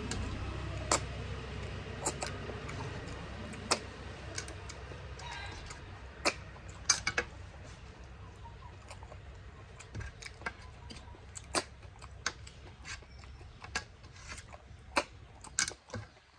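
Eating by hand from a bell-metal plate: irregular sharp clicks and taps as snail shells and fingers knock against the metal plate, about twenty over the stretch.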